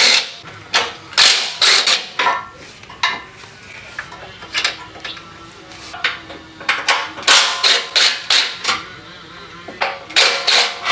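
Cordless impact driver hammering in short bursts of rapid rapping, several times with pauses between, as it backs out the bolts holding a car's front crash beam.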